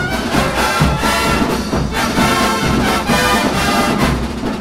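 Drum and bugle corps horn line playing a loud, full brass passage in sustained chords.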